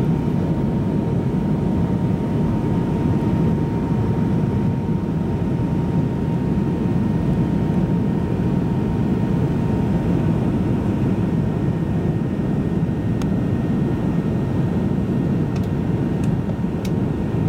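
Loud, steady cabin noise of an MD-88 airliner on approach with its flaps extended: the drone of its rear-mounted Pratt & Whitney JT8D turbofans mixed with airflow rush. A faint steady whine runs underneath and fades out about ten seconds in.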